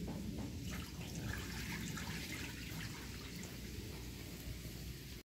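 Water splashing and trickling as the rinse water from washed glutinous rice is poured out of a metal pot onto concrete, with faint light ticks and drips.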